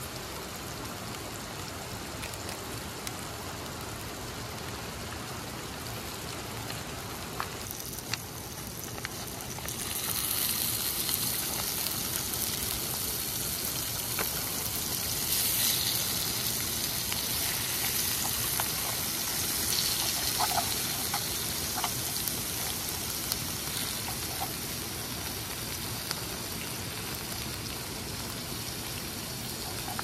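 Rushing stream water: a steady hiss that grows louder and brighter about ten seconds in.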